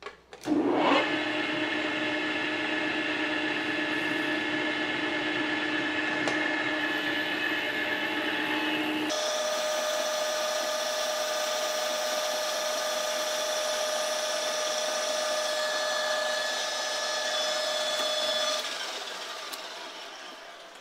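Large engine lathe spinning a bronze hex bar in its chuck: the spindle drive comes up to speed just after the start and runs with a steady gear whine. About nine seconds in the whine changes abruptly to a higher pitch, and it dies away near the end.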